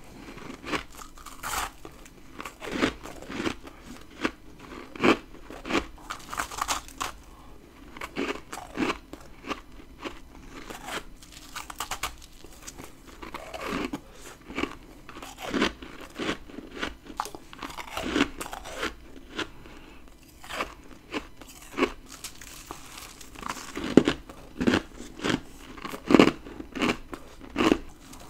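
Humidifier frost from a deep freezer being bitten and chewed close to the microphone: a series of crisp, crackly crunches at about one a second, with the loudest bites near the end.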